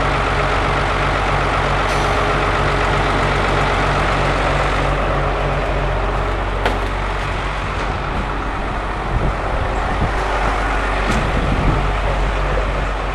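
Electric motor running steadily with a low hum, with a few small knocks and clunks in the second half as the hoist ram is lifted out.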